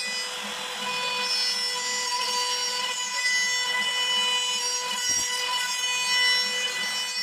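Makita router on a CNC machine cutting slots through a wood panel: a steady high-pitched whine from the spinning router motor over the rasp of the bit chewing through the wood.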